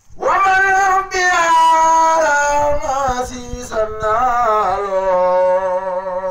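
A man chanting Arabic devotional verse solo and unaccompanied, drawing the line out in long held notes, with a short break about a second in. From about four seconds in the held note wavers up and down.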